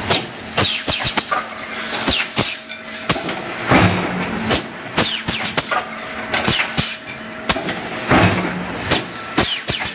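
Mechanical stamping press running a transfer die: repeated metal clanks and knocks from the press stroke and the moving tooling, with a heavier cycle about every four seconds. Short bursts of air hissing come from the pneumatic cylinders between the knocks.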